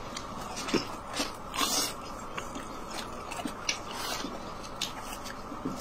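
Close-miked biting and chewing of a pan-fried dumpling: irregular soft crunches and mouth sounds over a steady background hiss.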